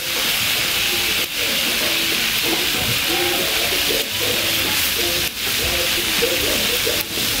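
Food sizzling in a large paella pan, a steady loud hiss with several brief dips.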